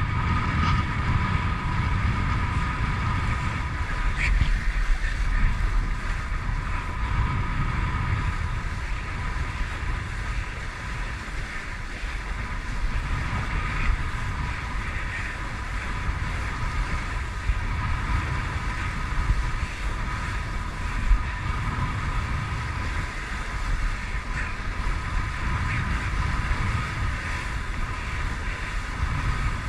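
Wind buffeting the microphone and water rushing and slapping past a windsurf board under sail, with a steady two-note whine.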